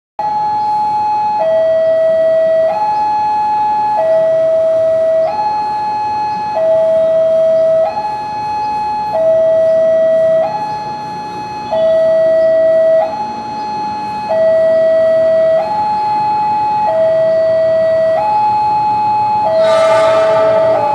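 Electronic railway warning alarm sounding a two-tone high–low call, each tone held about a second and a quarter, as a train approaches. Near the end a brief loud burst rises over it as the train draws close.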